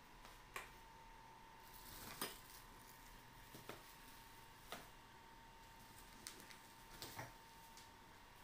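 Quiet room with a few scattered light knocks and clicks, the loudest about two seconds in, from plastic-wrapped tricycle parts and a cardboard box being handled during unpacking. A faint steady hum runs underneath.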